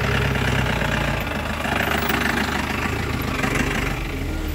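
Jeep engine running slowly in low gear with a steady low drone and a rapid, even knock, as the jeep crawls up a muddy track and draws alongside.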